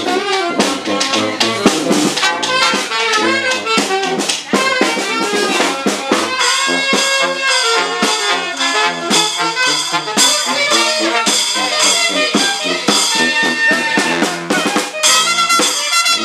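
Brass band playing an upbeat tune, horns including saxophone and low brass over a steady drum beat.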